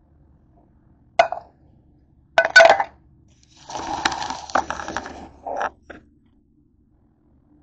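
Kitchen clatter of metal and cookware: a sharp clink about a second in, two louder clinks a second later, then about two seconds of rubbing and knocking as the camera is handled and moved, ending in two short knocks.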